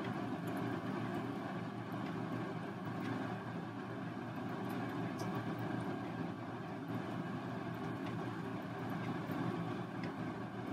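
A steady low hum with an even level, with a few faint ticks over it.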